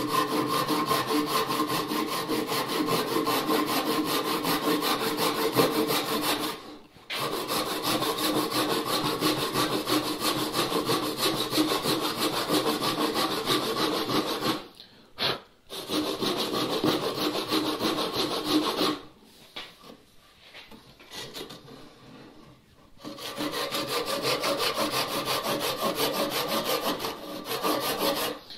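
Ryoba Japanese pull saw cross-cutting a pine bench leg by hand: a steady run of rapid rasping strokes. It stops briefly about seven seconds in and again about fifteen seconds in, then pauses for a few seconds around twenty seconds in before the sawing starts again.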